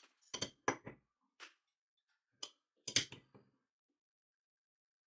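Steel adjustable wrench clinking against the hex top nut of a bottle jack's cylinder as it is fitted onto the nut. A few sharp metallic clicks come in the first second, single ones follow at about one and a half and two and a half seconds, and the loudest pair comes about three seconds in.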